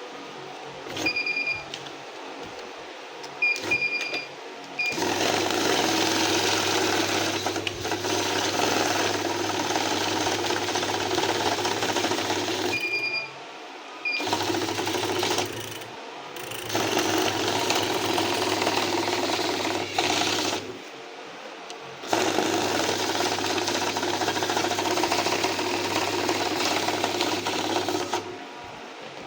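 Electric banknote counting machine running in three runs of several seconds each, its motor humming under the rapid whirr of notes feeding through, with short high beeps in the pauses between runs.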